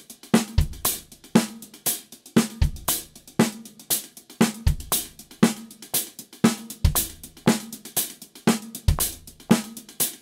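Drum kit playing a funk groove exercise: steady hi-hat strokes with accented snare backbeats on 2 and 4, and a single bass drum note on the last sixteenth of each bar, so the kick lands once about every two seconds.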